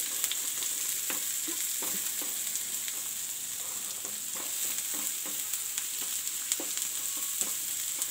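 Chopped onion, garlic and green chilli sizzling in oil in a non-stick pan, being lightly fried, with a steady hiss. A wooden spatula stirring them makes scattered short scrapes and taps against the pan.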